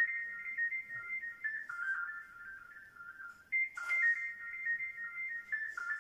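Background music: a simple, high, ringtone-like electronic melody of single pure notes, its short phrase starting over about every four seconds. A brief scratchy rustle cuts in about four seconds in.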